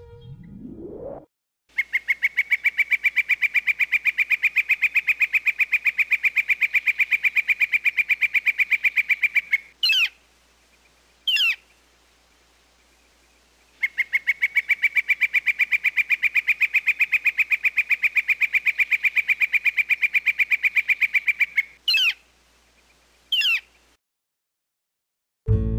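A red-shafted northern flicker gives its long call, a rapid, steady run of evenly repeated notes that lasts about eight seconds, then two short calls falling in pitch. The whole sequence plays twice. A brief rising swoop comes at the very start.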